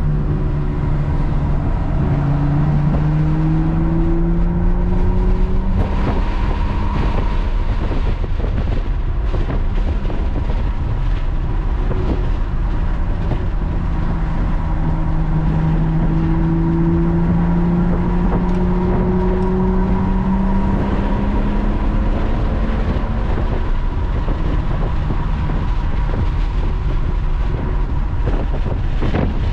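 Lotus sports car's engine heard from inside the cabin on track, the engine note climbing slowly twice as the car accelerates, over steady tyre and wind noise.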